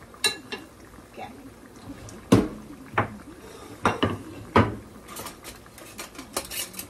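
Dishes and a utensil clinking and knocking on the counter, about five sharp knocks in the first five seconds, over the light sizzle of croquettes frying in oil in the pan.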